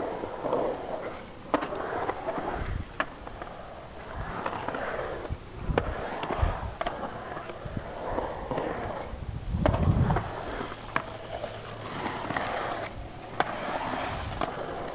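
BMX bike riding a concrete skatepark bowl: tyres rolling on the concrete in swelling rushes, with scattered sharp clicks and knocks, and a heavier low thump about ten seconds in.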